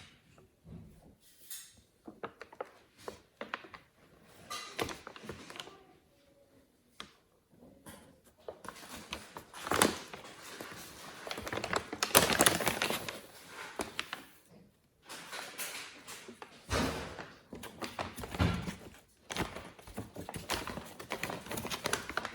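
A rustling bag being pounced on and batted by playing kittens, crinkling in irregular bursts. It is sparse at first and grows louder and busier from about nine seconds in.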